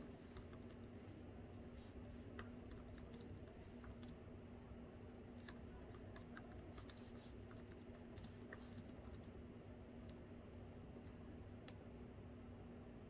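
Faint typing on a laptop keyboard: irregular soft key clicks over a steady low room hum.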